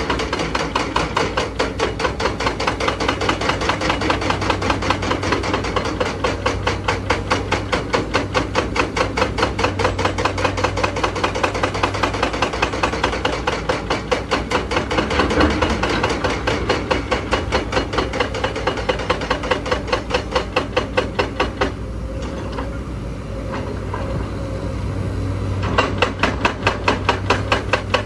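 Hydraulic breaker hammer on a Zoomlion ZE335E excavator pounding rock in rapid, steady blows over the excavator's running diesel engine. The hammering stops for about four seconds near the end, leaving only the engine, then starts again.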